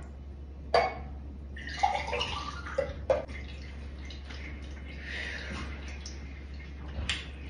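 Carrot juice poured from the juicer's jug into a drinking glass, with a few sharp clinks of glass, then sips from the glass.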